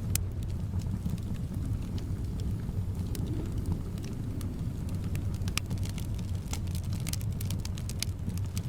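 Wood fire crackling, with frequent sharp, irregular pops and snaps over a steady low rumble of wind.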